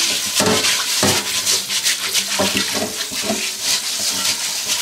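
Tap water running into a carbon steel wok while a bamboo wok brush scrubs its inside in repeated strokes, the water splashing and swishing in the pan.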